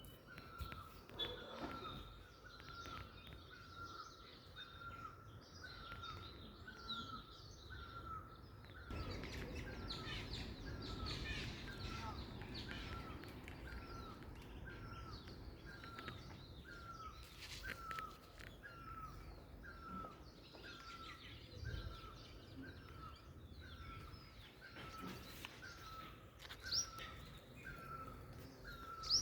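A bird repeating one short note evenly about once a second, with other birds chirping higher over it. A low rumble swells for a few seconds around a third of the way in.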